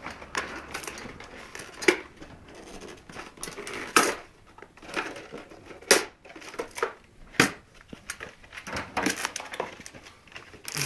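Handling noise as a PC case's accessory box is opened and its parts taken out: packaging crinkling and rustling, with four sharp knocks.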